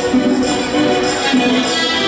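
Music for a Latin ballroom dance round, playing continuously with pitched instruments and percussion.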